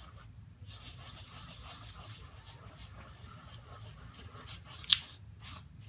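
Gilding flakes being burnished by hand into sticky adhesive through a stencil on a card panel: a faint, steady scratchy rubbing, with one sharp tick about five seconds in.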